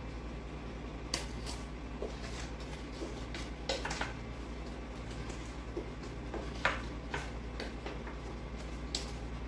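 Wooden spoon stirring flour into cake batter in a stainless steel mixing bowl, with short clinks and knocks against the bowl every second or so over a steady low hum.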